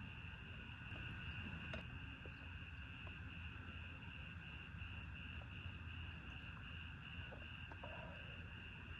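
A steady, high, slightly pulsing insect trill, like crickets, goes on over a low rumble, with a few faint ticks.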